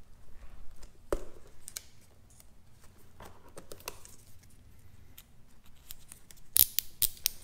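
Small plastic clicks and ticks as fingers unclip and handle reusable plastic wire ties on a motorcycle's wiring harness. There is a sharper knock about a second in and a quick run of sharp clicks near the end.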